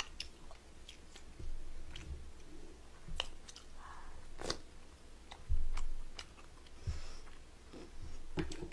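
A person biting and chewing a mouthful of braised chicken close to a microphone: irregular wet mouth clicks and a few soft low thumps.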